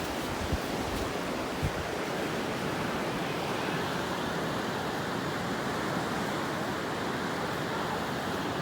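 Steady wash of sea surf breaking on the beach, with two brief low thumps about half a second and a second and a half in.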